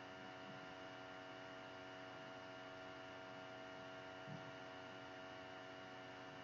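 Faint steady electrical hum made of several fixed tones, with a small low bump about four seconds in.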